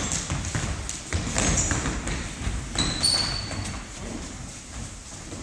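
Indoor football on a wooden gym floor: ball kicks and thuds of the ball and feet on the boards, with a short high squeak about three seconds in, in a large hall.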